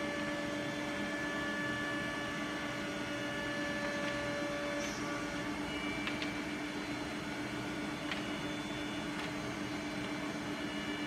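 Holztek PRO-R4F four-head CNC nesting router running: a steady machine whine of several held tones over a hum of motors and dust extraction, with a few faint clicks in the second half.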